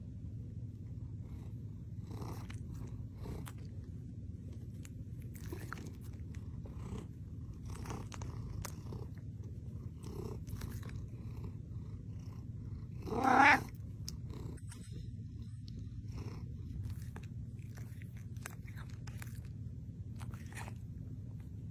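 Domestic cat purring steadily and close up, with one short, loud meow that rises in pitch about two-thirds of the way through.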